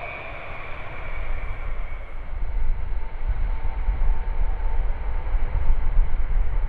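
Four-engine jet aircraft noise: a Boeing 707's engines whine down with a falling pitch on the landing roll, then a deep rumble from another four-engine jet on approach grows steadily louder.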